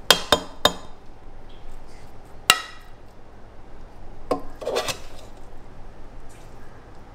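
Metal serving spoon clinking against a stainless steel pot and a ceramic plate while rice is dished out: three quick clinks, a single ringing clink a couple of seconds later, and a few more about two-thirds of the way through.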